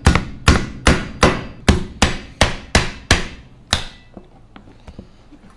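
Kitchen cleaver knocking on a big lobster claw on a cutting board to crack the shell: about ten sharp knocks, two or three a second, which stop about four seconds in.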